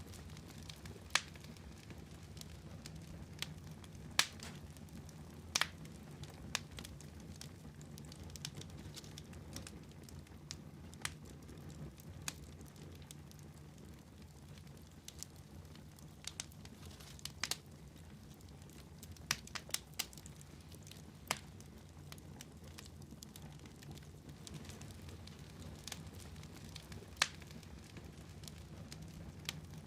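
Wood fire crackling in a fireplace: irregular sharp pops, a few seconds apart and sometimes in quick clusters, over a steady low rumble.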